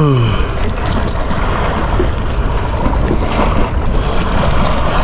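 Wind buffeting the microphone over the wash of the sea: a loud, steady rushing with no pitch.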